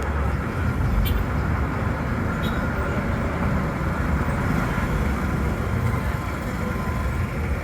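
City street traffic: a steady low rumble of vehicle engines, with no single event standing out.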